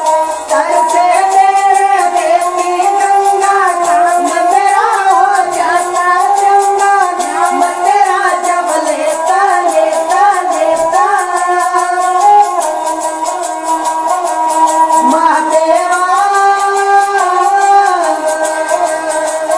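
A high voice singing an Indian folk-style melody, full of sliding and bending ornaments, over a light, fast, steady ticking beat.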